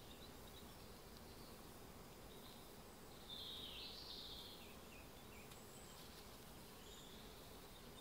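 Quiet woodland ambience: a faint even hiss with distant bird calls, one a little louder and wavering a little past three seconds in.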